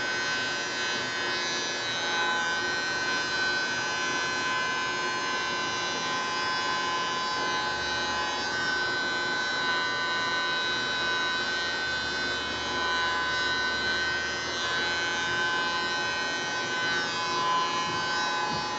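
Steady whine of a small electric motor running continuously, holding several fixed pitches over a soft hiss.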